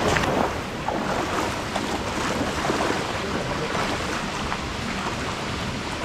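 Rushing water of a forest waterfall and its stream, a steady noise.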